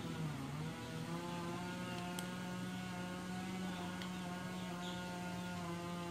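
A steady machine hum held at one even pitch, with a single small click about two seconds in.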